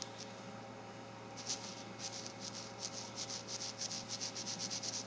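Fine-tip Fudepen FL2F brush pen scratching across glossy photo paper in quick short hatching strokes, about three to four a second, starting about a second and a half in.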